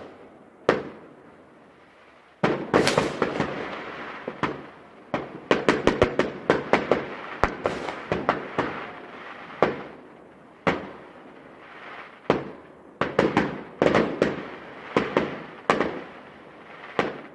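Fireworks going off: a series of sharp bangs, some in quick clusters, each trailing away in a fading crackle.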